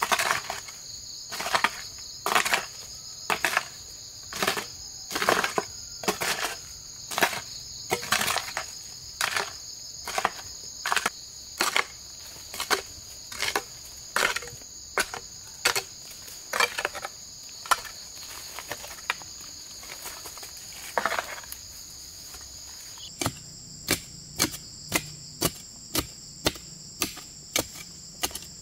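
Repeated sharp blows, about one and a half a second, over a steady high-pitched insect chorus. Near the end the blows come a little quicker and thinner.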